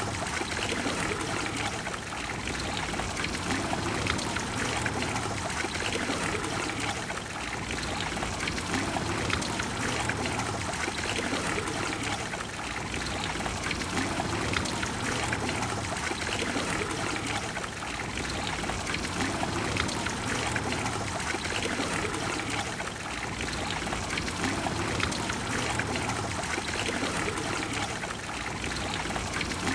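Trevi Fountain's water flowing and splashing into its basin: a steady rush of falling water that swells and eases every few seconds.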